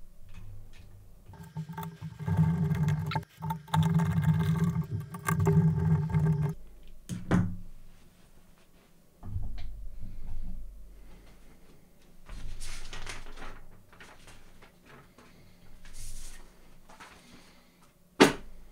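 A small electric screwdriver runs steadily for about five seconds, driving a screw into a threaded brass insert in a plastic blaster stock. Quieter handling clatter follows, with a sharp knock near the end.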